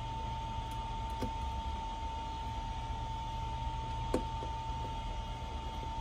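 Steady high-pitched whine over a low room hum. A few faint light clicks, the clearest about four seconds in, come from a small screwdriver working the screws of a tablet's plastic inner cover.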